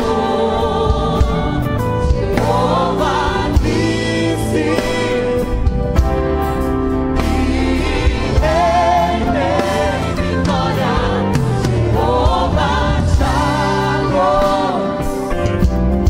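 Live gospel worship song: a full band with a drum kit played throughout, cymbals and drum hits cutting through, and voices singing over it.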